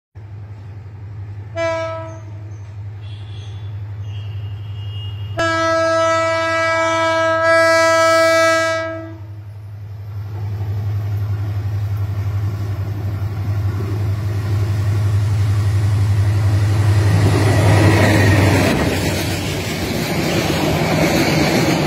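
Bangladesh Railway diesel locomotive 2930 sounding its horn as it approaches: a short blast, then a long blast of about four seconds. The train then runs through at speed, its noise swelling into the rushing rumble and wheel clatter of the passenger coaches passing close by.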